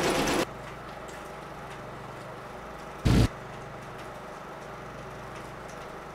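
16mm film projector running with a steady mechanical hum. Two short, loud bursts of noise cut across it: one lasting about half a second at the start, and a shorter, bass-heavy one about three seconds in.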